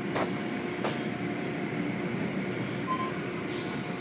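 Automatic tunnel car wash machinery running: a steady rumble and spray of water jets and cloth wash curtains working over a van. Two sharp knocks come in the first second, and a short hiss comes about three and a half seconds in.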